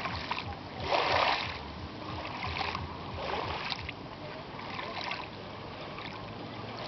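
Sea water splashing and washing in irregular surges, the strongest about a second in, then a few weaker splashes.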